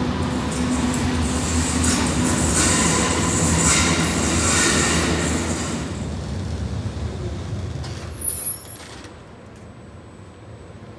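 Berlin U-Bahn small-profile train pulling out of a station, its wheels rolling and squealing on the curved track, the sound fading as it draws away. A short, sharp high-pitched burst comes about 8 seconds in, then only a quiet steady background.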